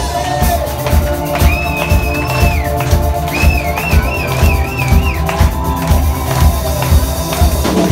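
Live rock band playing loud, with a regular drum beat under bass and guitar and a high wavering lead line that comes in twice. The sound is heard through a phone's microphone in the crowd.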